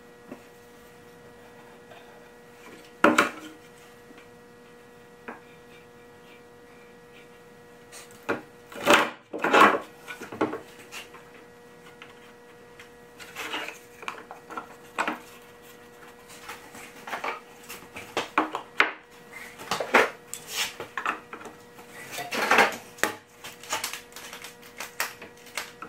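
Plywood parts being handled, set down and knocked against the cabinet while corner blocks are glued and clamped on: irregular wooden knocks and clatters, with a sharp knock about three seconds in, a loud cluster around nine seconds, and busier handling through the second half. A faint steady hum sits underneath.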